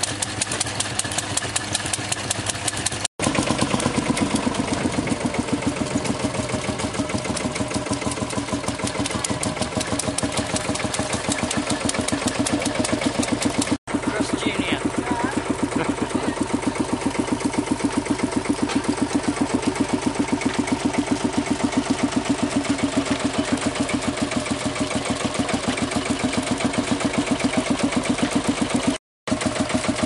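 Vintage tractor engine running steadily with a rapid, even beat while belt-driving a threshing machine. The sound drops out briefly three times.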